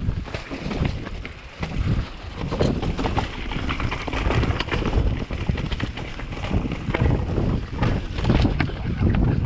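Wind buffeting the microphone in uneven gusts: a loud, low rumble that swells and drops, with scattered crackles.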